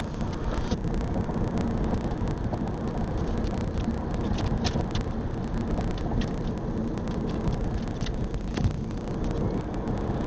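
Steady road and driving noise of a moving car, a low rumble with scattered faint clicks.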